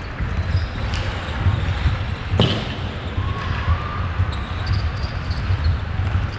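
Ice hockey rink sound: a steady low rumble with scattered light clicks of sticks and puck, and one sharp puck crack about two and a half seconds in that rings briefly in the arena.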